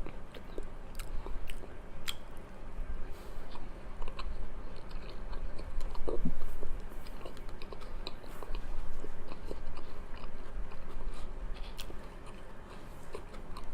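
A person chewing and biting mouthfuls of spicy chicken chhoila close to the microphone, with many small wet clicks and mouth noises. A brief louder low sound comes about six seconds in.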